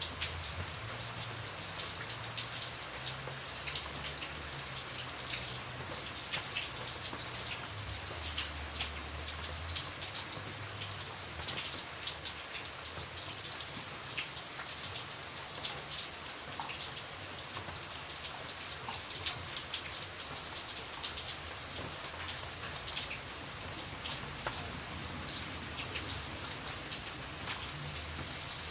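Light rain falling steadily, with many separate drops heard as sharp ticks over a soft hiss. A faint low hum runs under it for about the first ten seconds, then fades.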